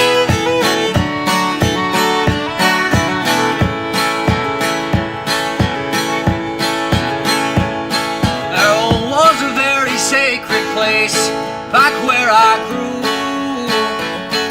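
Background music: a country-style song with plucked acoustic guitar keeping a steady beat. About eight seconds in, a melody line with a wavering pitch comes in over it.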